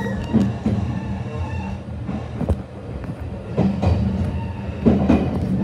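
Electric commuter train running along the track, heard from inside the front car: a steady low running hum with wheels clicking and knocking over rail joints and points every second or so.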